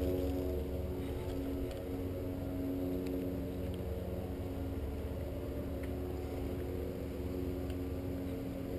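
A steady low hum made of several constant tones, with a few faint ticks.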